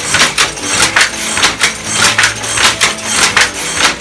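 Cast-iron Hattersley loom weaving at speed: a rapid, regular clatter of wood and metal knocks from the shuttle being thrown and the sley beating up the weft, about three to four knocks a second.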